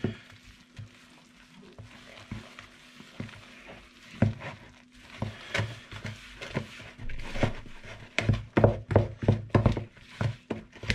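Big spoon stirring flour and warm yeast water into a stiff bread dough in a bowl, with scraping and irregular knocks against the bowl. The knocks come thicker and faster in the last few seconds as the dough clumps together.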